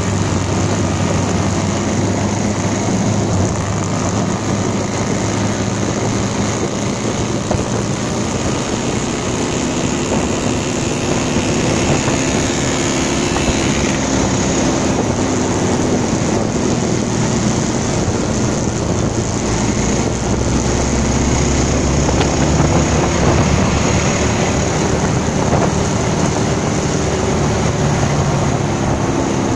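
Bajaj Pulsar 220's single-cylinder four-stroke engine running steadily under way, with wind and road rush on the bike-mounted camera's microphone. The engine note climbs about two-thirds of the way in as the bike speeds up.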